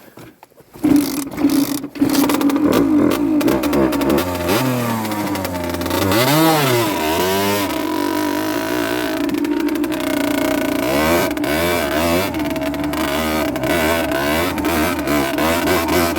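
Rieju Drac 50's 50cc two-stroke engine starting up about a second in, then running with revs rising and falling as the bike is ridden, settling to a steadier drone in the second half.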